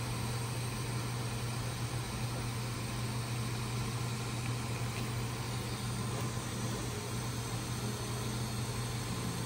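TIG welding stainless braces onto an exhaust manifold: a steady, even hiss with a low hum under it.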